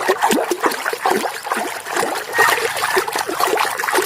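Water splashing and trickling as a muddy toy vehicle is washed by hand, in many short, irregular splashes.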